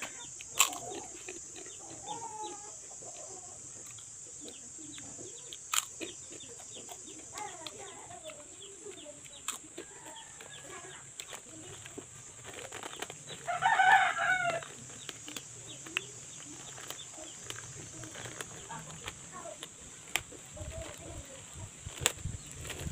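A rooster crows once, about fourteen seconds in, over fainter scattered chicken calls, a few sharp clicks and a steady high hiss.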